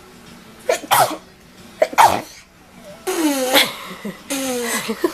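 Two sharp sneezes in quick succession, about a second apart, followed by two short voiced sounds that each dip in pitch.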